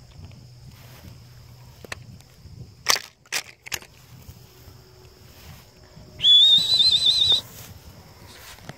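Dog-training whistle blown once, a loud warbling trill lasting a little over a second near the end. Before it come footsteps swishing through tall grass and three sharp snaps about a third of the way in.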